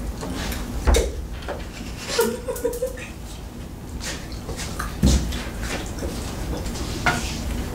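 A few short knocks and clicks, the loudest about a second in and about five seconds in, with a brief murmur of a voice between them.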